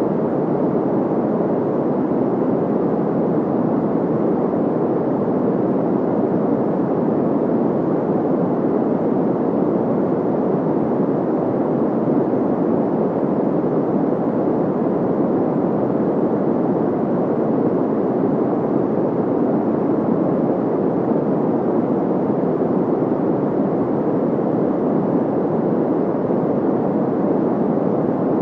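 Steady generated white noise: an even, unchanging rush weighted toward the low-middle range, with little high hiss.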